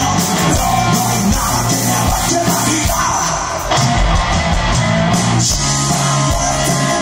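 Loud live rock music: a band with electric guitars and drums playing at full volume, with a shouted vocal.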